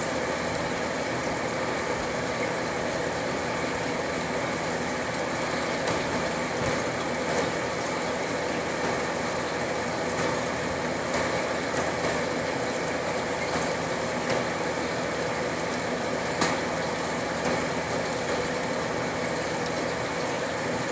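A steady mechanical hum under an even hiss, with a few faint scattered clicks; the sharpest click comes about two-thirds of the way through.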